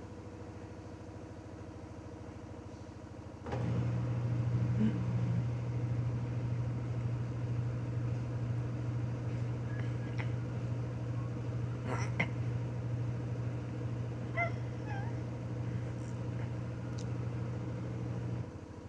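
Washing machine motor turning the drum: a steady low hum starts abruptly about three and a half seconds in, runs at an even pitch for about fifteen seconds, then cuts off shortly before the end, with a few faint clicks and squeaks over it.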